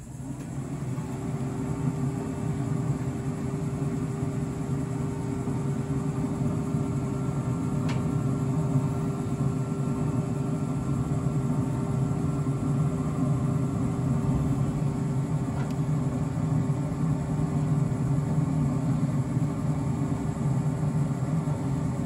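A motor spins up at the start, its pitch rising briefly, then runs with a steady hum over a low rumble, with a couple of faint clicks along the way.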